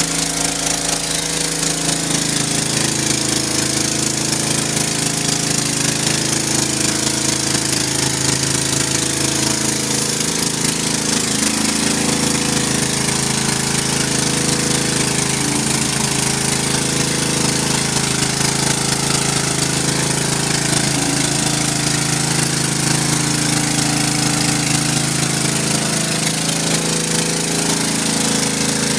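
Pressure washer running steadily, with the hiss of water spraying from a 15-inch rotary surface cleaner as it is pushed across wet concrete.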